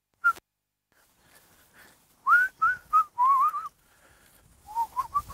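A person whistling a tune in short bursts of quick, gliding notes, with gaps between the phrases.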